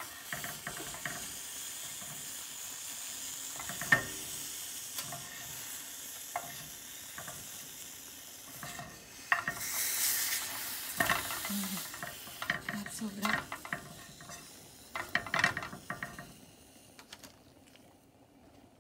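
Prickly pear cactus pads sizzling in a hot frying pan, with sharp clicks and knocks of a utensil moving the pieces. The sizzle swells about ten seconds in and dies down near the end.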